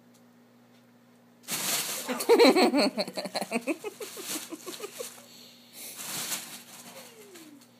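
Crinkly fabric cat tunnel rustling loudly as it is handled and the cat moves in it, starting suddenly and coming in bursts. Over it, about two seconds in, comes a quick string of short rising-and-falling vocal sounds, the loudest part. Near the end there is one falling vocal sound.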